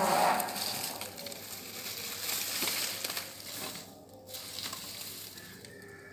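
Straw-and-wood fire crackling and sizzling in a clay chulha under a cooking pot, with the rustle of dry straw being pushed into the flames; it fades gradually.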